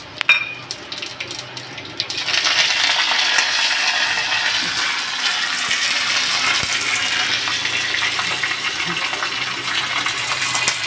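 A sharp clink just after the start, then from about two seconds in a loud, steady sizzle as curry leaves go into hot oil with mustard seeds in a small steel tadka ladle over a gas flame: the tempering being fried.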